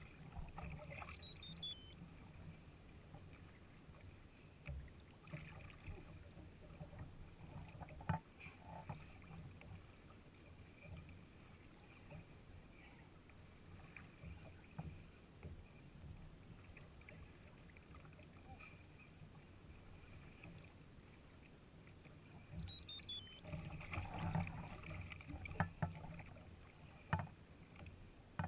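Fishing kayak rocking on the water, with water lapping at the hull and occasional single knocks and clicks of gear handling. A short high chirp sounds twice, about a second in and again near the end.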